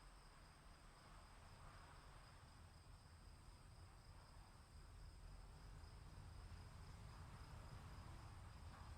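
Faint storm ambience: insects trilling steadily in two high tones over a low rumble that swells slightly partway through.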